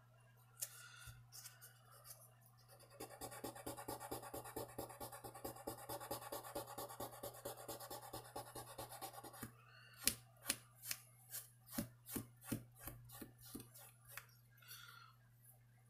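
Abrasive paper rubbed by hand back and forth over a pocketknife's metal bolster, a faint scratchy rubbing. First come quick even strokes, about seven a second, for several seconds, then slower, louder strokes, about two a second.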